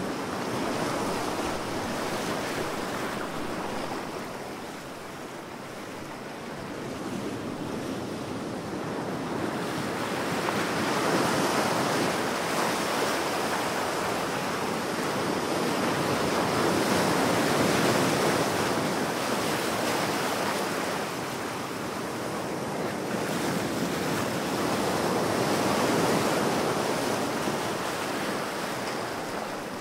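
Powerful ocean waves breaking in a continuous rush of surf that swells and falls back every several seconds.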